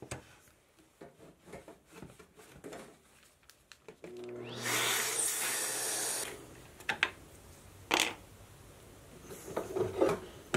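Shop vacuum runs for about two seconds, its hose nozzle clearing wood chips from a freshly routed hinge mortise, then shuts off. Light knocks and clicks of handling come before it, and a few sharp knocks follow.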